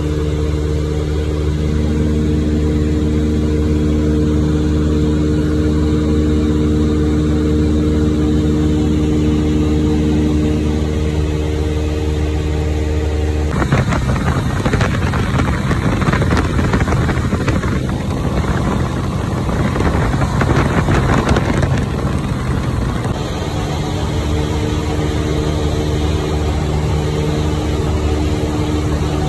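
Cessna 152's four-cylinder Lycoming O-235 engine and propeller droning steadily in cruise, heard from inside the cabin. For about ten seconds in the middle a louder rushing noise covers the engine's steady tones.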